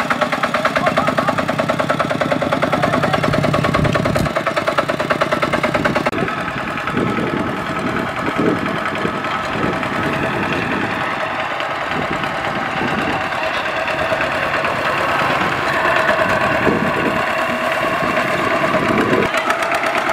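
Single-cylinder diesel engine of a two-wheel walking tractor running steadily as it pulls a trailer loaded with rice sacks. The engine sound shifts about six seconds in, where a different tractor is heard.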